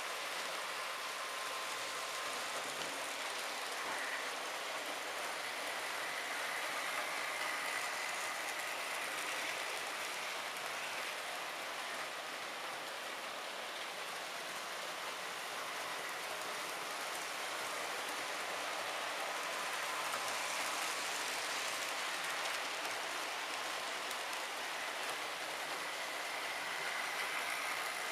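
HO-scale model trains running on the layout track: a steady rolling hiss of the wheels on the rails, with a faint electric-motor whine that comes and goes.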